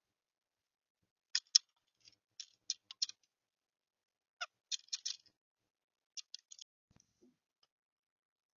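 Sharp taps and scratches inside a wooden bird house, in four short flurries, as a bird moves about and pecks in the nest box.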